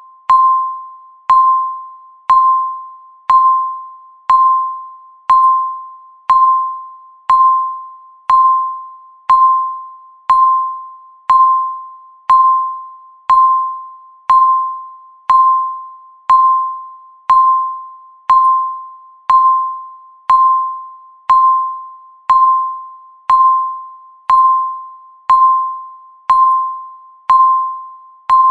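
Countdown timer's ticking sound: a short, clear electronic ping once every second, each one struck sharply and fading quickly, in a steady unbroken rhythm.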